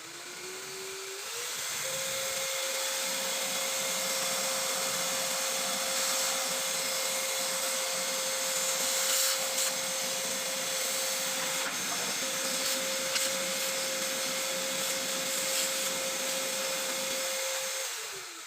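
A small electric fan motor blowing air. It whines up to speed over about the first second, runs steadily with a loud rush of air and a constant whine, then winds down near the end.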